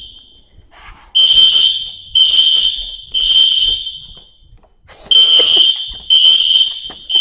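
Hotel fire alarm sounding its evacuation signal: a loud, high electronic beep in groups of three, about a second apart, with a pause between groups, the temporal-three pattern that calls for everyone to leave the building.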